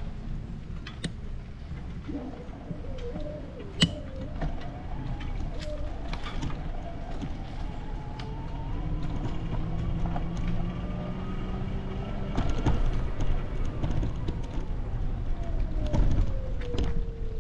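An engine passing at a distance, its whine climbing slowly in pitch and then falling away, over a low wind rumble on the microphone, with a few sharp clicks, the loudest about four seconds in.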